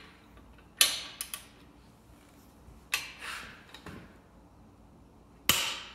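Steel hand tools knocking and clinking against each other and the axle while a torque wrench is fetched and set up on a pinion nut: three separate sharp metallic knocks with a short ringing tail, about a second in, near the middle and near the end, with a few small clicks between.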